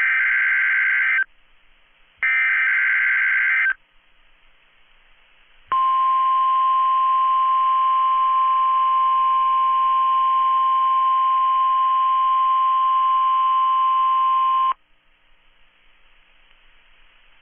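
NOAA Weather Radio emergency alert signals: two bursts of harsh, warbling SAME digital header data about a second and a half long, then a steady single-pitch 1050 Hz warning alarm tone held for about nine seconds. It is the alert a weather radio station sends at the start of its weekly alarm test, the tone that switches on specially built receivers.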